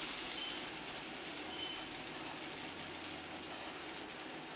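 Rava appam batter sizzling on a hot oiled pan: a steady, even hiss.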